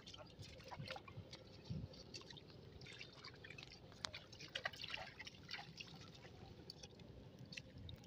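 Faint small splashes, drips and light crackles of shallow water and wet grass, as someone wades through flooded grass and mud.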